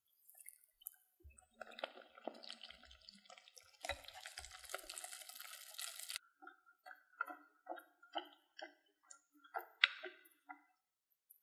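Whisk beating flour into milk and water in a glass bowl: wet sloshing and clicking, busiest in the middle, then separate strokes about two a second as the batter turns smooth.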